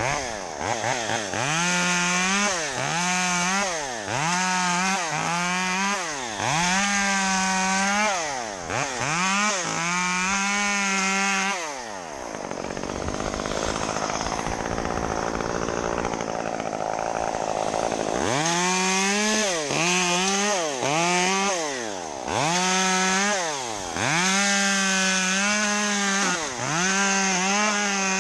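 Two-stroke chainsaw worked with repeated bursts of throttle, its pitch rising and falling about once a second. In the middle the engine note drops and turns rougher for several seconds before the throttle bursts resume.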